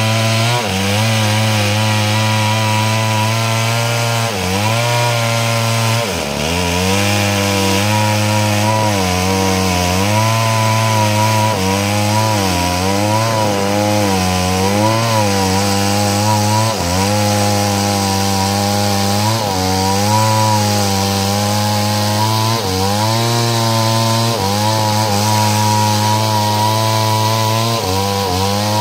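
Stihl two-stroke chainsaw running at high revs while cutting wood lengthwise into planks, its engine pitch repeatedly dipping and recovering as the chain bites in.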